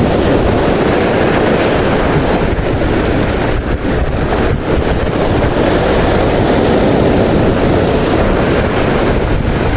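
Steady wind buffeting the microphone, mixed with the wash of sea water.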